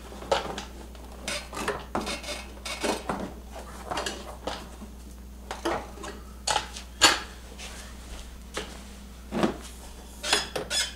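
Irregular metallic clanks, knocks and scrapes as a snowmobile's stainless-steel Rotax muffler is handled and worked into position in the engine bay. The sharpest knock comes about seven seconds in.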